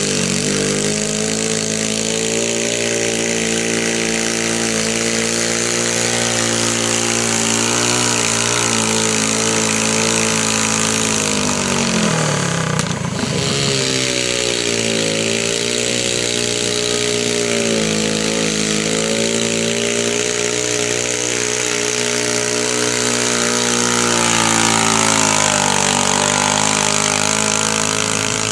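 Garden tractor engines running hard while towing a weight-transfer pulling sled. The engine pitch sags and recovers several times as the engines labour under the sled's load, with a brief break partway through where a second tractor takes over.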